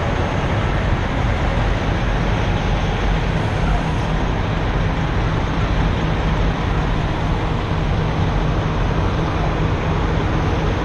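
Steady rumble of idling semi trucks, with a low engine hum that holds under a constant rushing noise.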